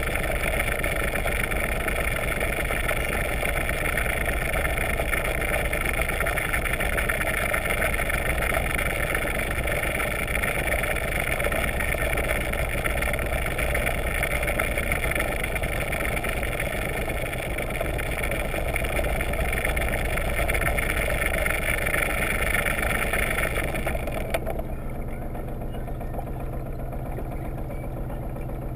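A yacht's inboard engine and 16-inch two-bladed folding propeller running, heard underwater as a steady mechanical hum with many tones. About 24 seconds in, the higher part of the sound cuts off abruptly and it drops to a quieter, lower hum as the propeller slows.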